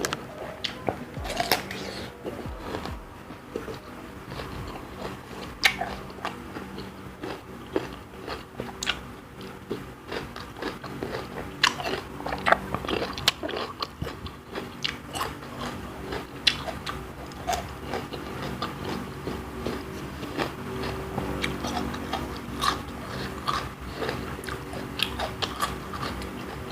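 A person eating rujak kangkung, water spinach in a spicy sauce, close to the microphone: chewing and biting with many irregular crisp crunches and clicks.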